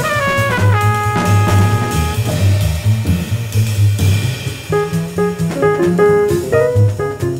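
Hard-bop jazz quintet recording of trumpet, tenor saxophone, piano, double bass and drums. A horn holds a long note that slides down, and after a lull quick short phrases start again about five seconds in, over a steady double bass line and drums.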